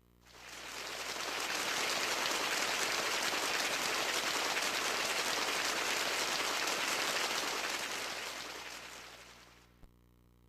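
A canned sound effect from a Kumyoung Chorus HD 200-II karaoke machine: a dense crackling rush of noise that fades in over about two seconds, holds steady, then fades out over the last few seconds.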